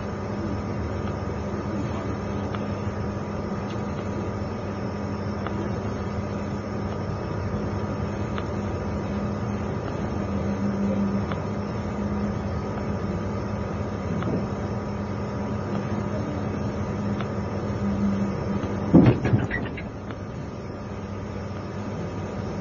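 Interior of a 20-series sleeper passenger coach: a steady hum with a constant low tone. About three-quarters of the way through come two or three sharp knocks close together, and the hum is slightly quieter after them.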